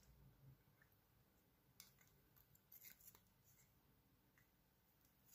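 Near silence: faint room tone with a few soft clicks, about two and three seconds in.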